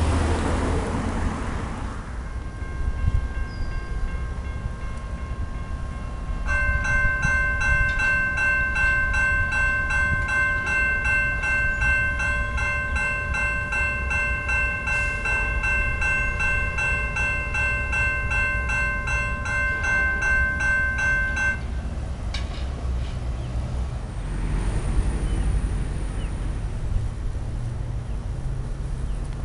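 Railroad crossing warning bell ringing rapidly and steadily for about fifteen seconds as the gates come down, then stopping abruptly, with wind rumbling on the microphone. The crossing has activated with no train present: a false activation from a malfunctioning signal.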